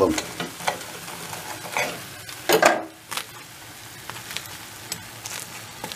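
Knife and fork cutting through a crisp, pan-fried cheese katmer pastry, giving scattered crackles and crunches, the loudest about two and a half seconds in, over a faint steady hiss.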